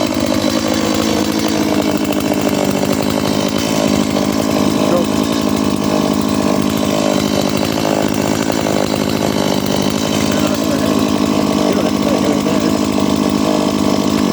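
Stihl Mini Boss two-stroke chainsaw engine running steadily at a constant speed.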